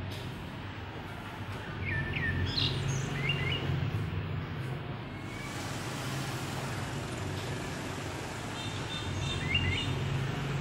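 Birds chirping in two short bursts, about two seconds in and again near the end, over a steady low background rumble.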